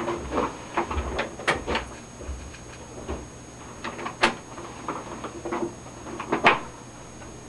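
Irregular clicks, knocks and rattles of computer equipment and its cables being handled, with a few sharp clicks and a low rumble during the first three seconds.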